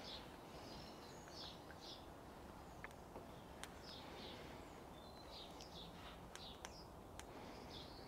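Faint birdsong: short chirps and twitters scattered throughout, with a few sharp clicks over a low steady background rumble.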